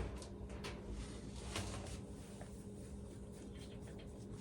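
Faint clicks and handling noise of meter test probes being fitted into a 240 V dryer receptacle, over a low steady hum.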